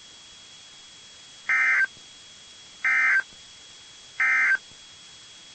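Emergency Alert System end-of-message signal: three short, identical bursts of data tones, about 1.4 seconds apart, marking the end of the alert.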